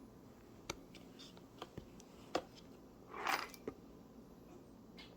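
Handling noise from a phone and its accessories: a few light, scattered clicks and taps, with a short rustle about three seconds in.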